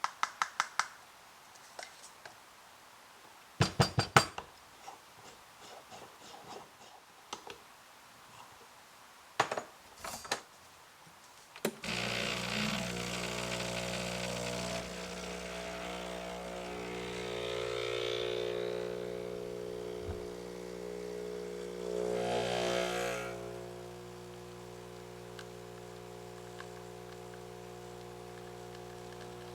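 Sharp clicks and knocks of espresso gear being handled, then about twelve seconds in an espresso machine's pump starts with a steady hum as the shot is pulled, easing to a softer hum near the end.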